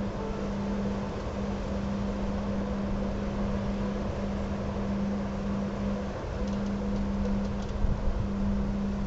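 Strong wind buffeting the microphone with a constant rushing noise, over a steady low hum that drops out briefly a few times.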